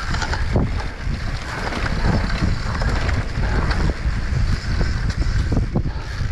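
Mountain bike descending a dirt singletrack at speed: wind rushing over the camera microphone, with the knobby tyres rolling on dirt and frequent knocks and rattles from the bike over bumps.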